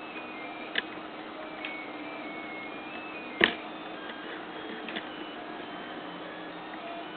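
H-Bot 3D printer's stepper motors whining through a series of short moves during a dry run, the pitch jumping to a new note with each move, over a steady low hum. A few clicks sound, a sharp one about three and a half seconds in.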